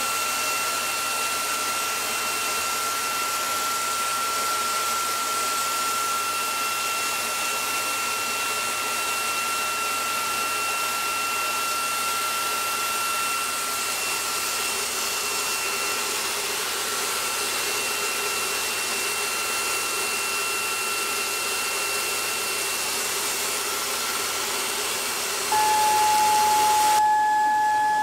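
Dyson vacuum cleaner running: a steady hiss of air with a high whine over it. Near the end the whine shifts to a lower, louder tone and the hiss drops away.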